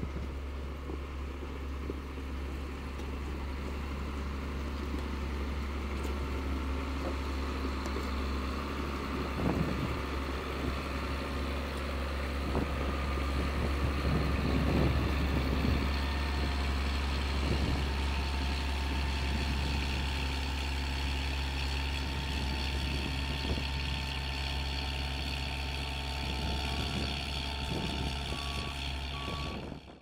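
John Deere 670G motor grader's diesel engine running steadily under load while its blade cuts and spreads gravel, with the rough crunch and clatter of stones louder partway through. Near the end a backup alarm beeps in short regular pulses.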